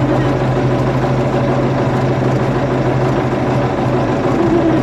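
Tractor engine running steadily under way, heard from inside the cab.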